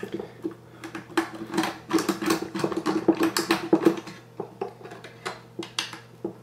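Irregular small plastic clicks and rattles as the braided fan cables are pried out of the plastic fan frames on a Swiftech H220 radiator, over a faint steady low hum.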